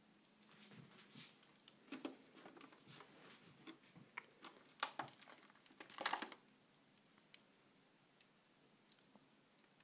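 Faint scattered rustles and light clicks of handling, the loudest a brief rustle about six seconds in, then near silence.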